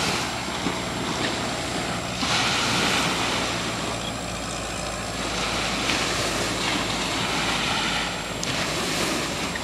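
Ocean waves washing and surging every few seconds, with wind buffeting the microphone and a steady low hum underneath.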